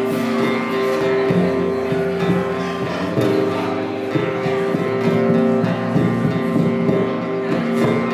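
Acoustic guitar played as an instrumental passage, its chords held and ringing, changing every few seconds.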